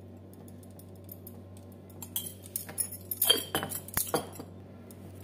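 A steady low hum, then, about two seconds in, a run of sharp clinks and rustles as kitchen utensils and spice containers are handled at the counter beside a steel mixing bowl.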